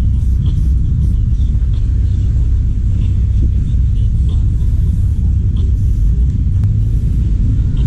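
A steady low rumble, with faint short hisses of an aerosol spray-paint can coming and going several times.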